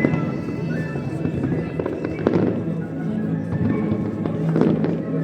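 Fireworks bursting over music: bangs and crackle, with heavier bangs about two seconds in and again near the end.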